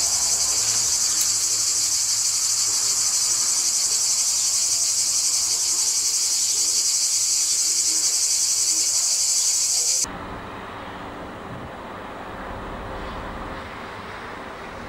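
Loud, steady drone of cicadas, cutting off suddenly about ten seconds in. A quieter low, steady rumble of outdoor noise takes its place.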